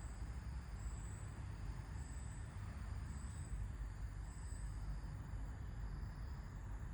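Wind blowing with a steady low rumble. A short high chirp repeats about once a second, then stops a little past halfway.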